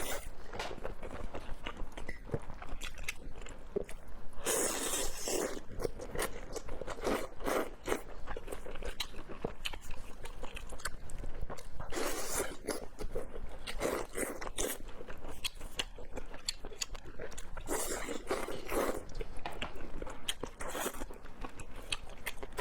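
A person biting and chewing food with crunching and quick chewing clicks. There are three longer, louder crunching bites, about four and a half, twelve and eighteen seconds in.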